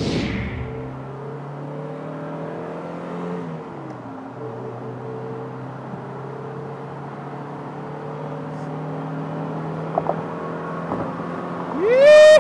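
A swoosh at the start, then a 1991 Mazda MX-5 Miata's 1.6-litre four-cylinder engine pulling up through a gear, heard from the cabin with the top down. The pitch rises, drops at a shift about four seconds in, and then holds steady at cruising speed. Near the end comes a loud rising yell.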